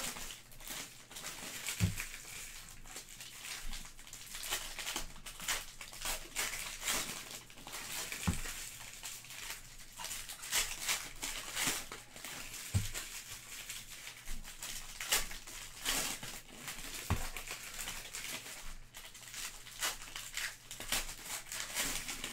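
Foil wrappers of Donruss soccer trading card packs crinkling and crackling as the packs are handled and opened by hand. A few soft low thumps come in now and then.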